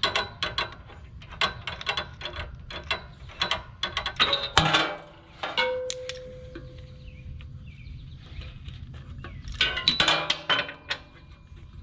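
Ratchet wrench with a 13/16 in spark plug socket clicking in quick bursts as a spark plug is turned in the Kawasaki FX691V engine. A short metallic ring comes about halfway through.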